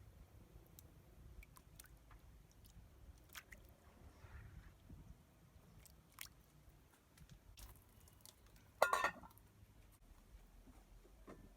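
Quiet mouth sounds of a person eating: chewing with scattered small clicks, and one louder short sound about nine seconds in.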